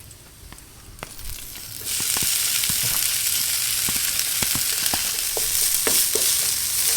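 Cooked rice going into a pan of hot oil and golden-brown fried garlic: about two seconds in a loud sizzle starts and keeps going, with the scattered clicks and scrapes of a spatula stirring the rice.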